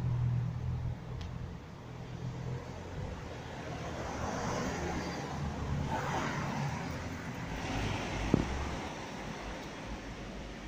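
Street traffic: cars passing, a low engine rumble followed by tyre and engine noise that swells and fades. A single sharp knock about eight seconds in.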